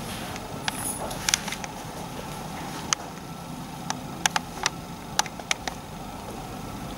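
Steady background noise with about a dozen sharp, short clicks at irregular intervals, a few about a second in and a cluster between four and six seconds in.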